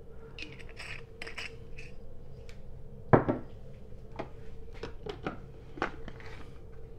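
Scattered clicks and knocks from kitchen items being handled: a glass syrup bottle is set down and the plastic cup of a personal blender is fitted with its blade lid. One louder knock comes about three seconds in.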